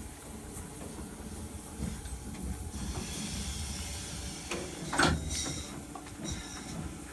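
Steam locomotive letting off steam: a hiss sets in about three seconds in, with a sharp, loud burst near five seconds, over a low rumble.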